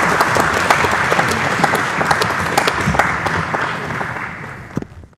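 Audience applauding with dense clapping that dies away over the last second or so and ends in silence.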